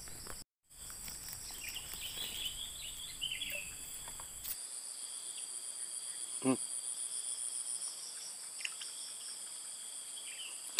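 Steady insect chorus, several shrill high tones held without a break, with a short low call about six and a half seconds in. The sound cuts out for a moment near the start.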